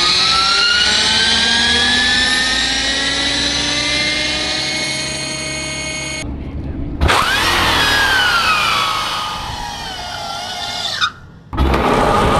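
Electric motorcycle motors whining: a high, many-toned whine climbing steadily in pitch as a bike accelerates, breaking off abruptly about six seconds in. A second whine rises briefly and then falls away as another bike slows, cut off abruptly near the end.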